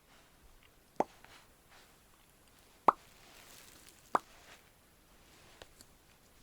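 A puppy hiccuping: three short, sharp hiccups at uneven intervals, the middle one the loudest.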